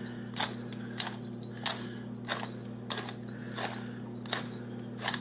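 Hand-twisted pepper mill grinding mixed peppercorns: a short crunching click about every two-thirds of a second, eight in all, over a steady low hum.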